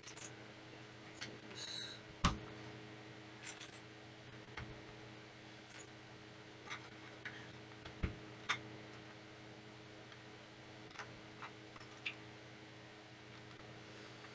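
Faint, scattered clicks and taps of plastic LEGO pieces being picked from piles and pressed onto a tan plate, the sharpest click about two seconds in, over a steady low hum.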